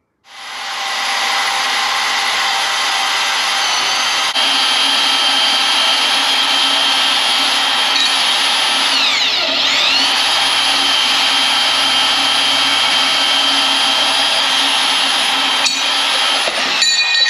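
Portable band saw running and cutting steel plate, a steady motor whine that spins up at the start, dips briefly in pitch and recovers about nine seconds in, and stops near the end.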